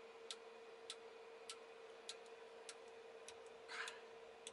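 Faint, evenly spaced clicking, a little under two clicks a second, from the M3D Crane dual 3D printer's extruder as it loads filament through a hot end that is not yet passing any. A faint steady hum runs underneath.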